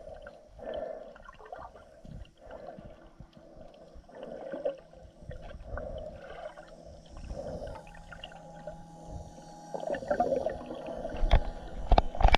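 Muffled underwater sound picked up by a camera in a waterproof housing: repeated gurgling swells of moving water. A steady low hum comes in about eight seconds in, and several sharp knocks near the end are the loudest sounds.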